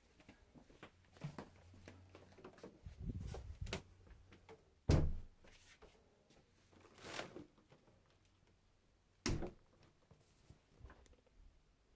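Scattered knocks and thuds from someone moving about a small room, with soft rustling between them. The sharpest thud comes about five seconds in, another about nine seconds in.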